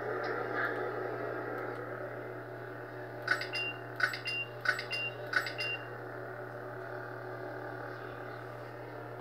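Ultimate Works Bors Dragonslayer lightsaber's sound-font hum running steadily. A little over three seconds in come four short clicks, each followed by a brief high beep, under a second apart: the saber's colour-switch beep as the blade cycles through colours.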